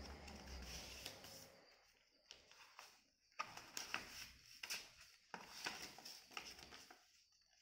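A sheet of paper being folded and creased by hand: soft rustling, then from about two seconds in a run of short, sharp crinkles and swipes as the folds are pressed flat. A faint low hum runs under the first second or so.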